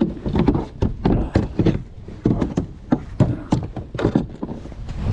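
Irregular knocks and thumps, about three a second, as a large bass is handled and laid out for measuring in a kayak, with the fish and gear bumping against the hull.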